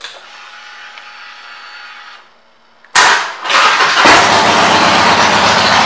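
With the ignition on, a faint hum runs for about two seconds (the fuel pump priming). About three seconds in, the 2016 Harley-Davidson Roadster's 1200 cc air-cooled V-twin is cranked and catches, then runs loudly at idle through its Vance & Hines aftermarket pipes.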